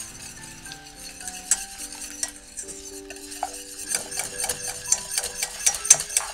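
Wire whisk stirring a thin sauce in a stainless steel saucepan, its wires ticking and scraping against the metal. The strokes are sparse at first, then quicker and louder from about four seconds in.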